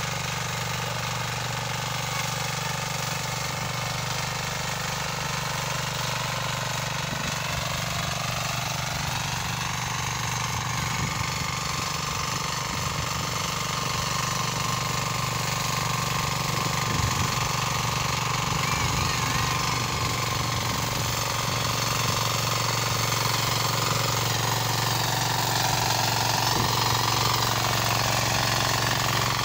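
Single-cylinder diesel engine of a two-wheel walking tractor (power tiller) running steadily as it pulls a loaded trailer cart, its pitch drifting slightly up and down, growing a little louder near the end.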